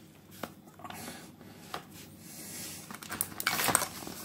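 Metal saw chain clinking and rattling on a Titan pole chainsaw's bar as it is handled, with a few separate clicks and then a louder cluster of metallic rattles near the end as a metal screwdriver is taken up against the bar. The chain is too loose, with too much play on the bar.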